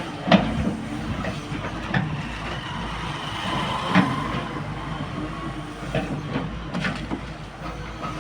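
Excavator engine running steadily, with sharp metallic clanks and knocks every second or two from the machine at work; the loudest clanks come less than half a second in and about four seconds in.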